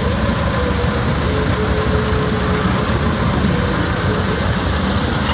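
Sportfishing boat's engines running steadily at low speed, a constant low rumble with a faint steady hum above it.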